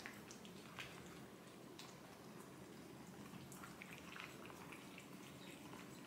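Two cats licking a lickable paste treat from bowls: faint, quick, irregular wet licking clicks and smacks.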